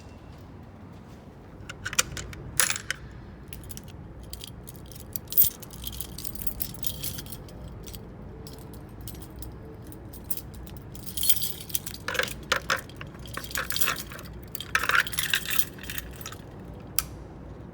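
A bunch of keys jangling, with sharp metallic clicks and clinks in scattered spells, busiest in the second half.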